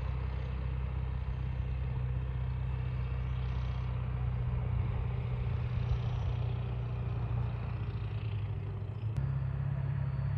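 A vehicle engine idling with a steady low hum. A single click comes about nine seconds in, and the idle note changes slightly after it.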